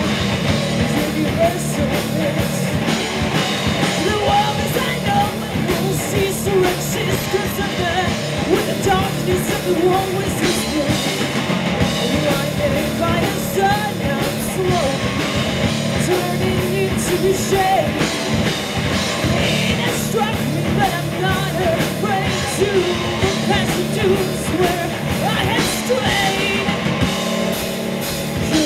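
Stoner rock band playing live, loud and steady throughout.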